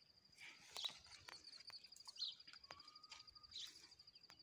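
Faint outdoor ambience: a steady, rapidly pulsing high insect trill runs throughout, with short bird chirps about every second and a half and a few faint clicks.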